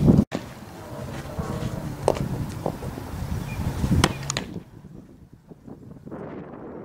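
Wind buffeting the camera microphone at an outdoor softball field, with two sharp knocks of the ball in a fielding drill, about two and four seconds in. After that it turns quieter, with a few faint ticks.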